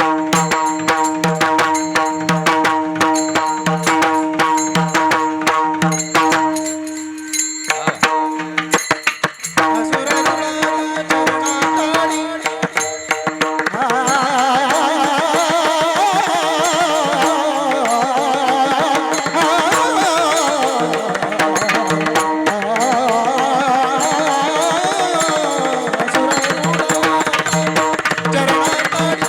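Varkari kirtan music: mridang drumming in a fast, dense rhythm over a steady held drone, broken briefly about seven seconds in. From about halfway a voice sings a long, ornamented melodic line over the drone.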